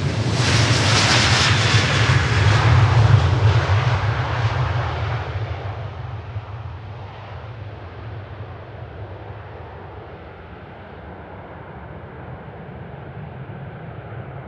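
Airbus A330-300 jetliner's engines at takeoff power as it passes and climbs away. The noise is loud for the first few seconds, with a thin whine falling in pitch, then fades to a distant low rumble.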